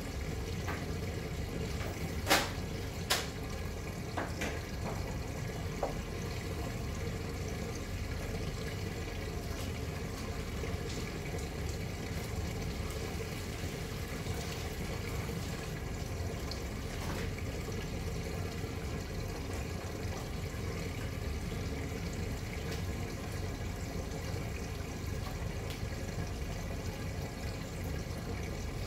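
Steady running-water sound of an aquarium's water circulating, unchanging throughout, with two sharp clicks a couple of seconds in.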